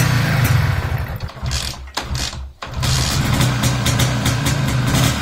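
MZ ETZ 250 single-cylinder two-stroke engine, freshly rebuilt after five years standing, being started. After a short dropout it starts about three seconds in and settles into a steady idle.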